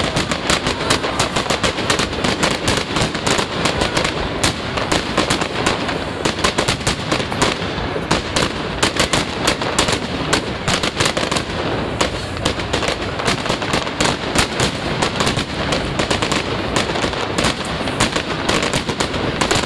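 Fireworks display: a rapid, unbroken run of sharp bangs and crackling, many per second.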